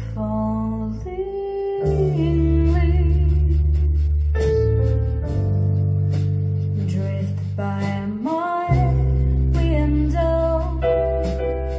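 Music playback: a woman singing with vibrato over sustained low bass notes that change every few seconds, heard through large JBL hi-fi loudspeakers in a room.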